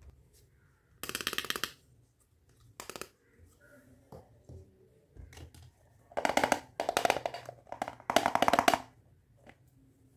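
Plastic toy kitchenware rattling in the hands: short bursts of rapid clicking, one about a second in, a brief one near three seconds, then three louder ones close together from about six to nine seconds, while a green toy frying pan is handled.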